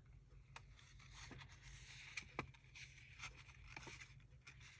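Near silence with faint paper handling: a few soft ticks and light rustling as paper is moved about.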